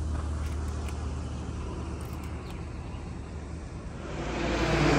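Steady low rumble of outdoor background noise, growing louder and hissier about four seconds in.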